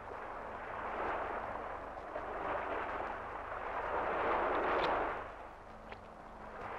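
Sea surf washing over shore rocks, swelling and falling away every couple of seconds.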